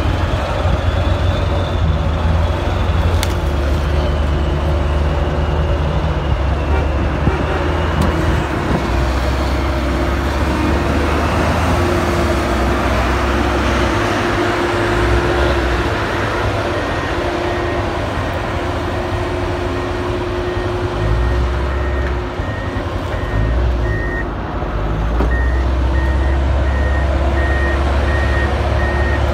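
Heavy diesel machinery running with a steady low rumble as a knuckleboom log loader works. From a little past halfway, a reversing alarm beeps at an even pace, about once a second.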